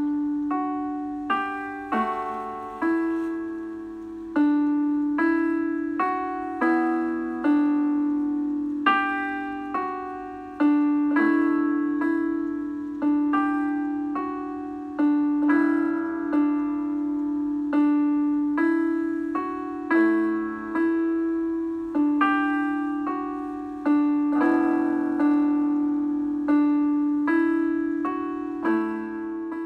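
Background music: a slow solo piano melody, its notes struck about once a second and dying away, over a steady held low note.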